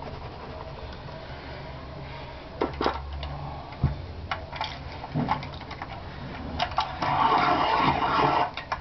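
A few light clicks and knocks, then a louder scraping rustle lasting about a second and a half near the end: handling noise at a drawing desk.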